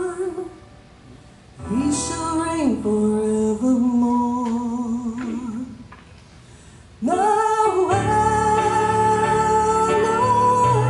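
A woman singing a Christmas hymn with a live band, in long held notes with short pauses between phrases. The accompaniment swells fuller, with bass, about seven seconds in.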